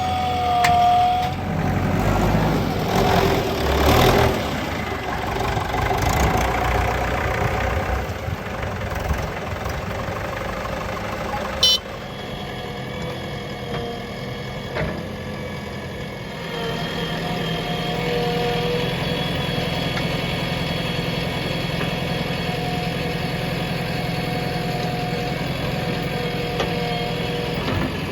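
Diesel engine of heavy working machinery. It rises and falls in speed for the first several seconds. After a sharp click and a cut about twelve seconds in, it runs at a steady idle.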